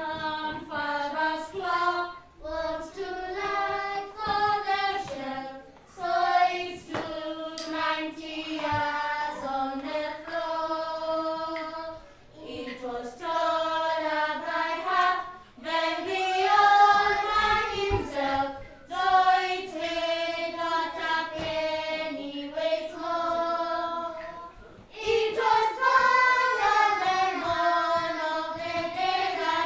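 A class of young children singing a song together, in phrases of a few seconds with short breaks between them, with sharp taps scattered through the singing.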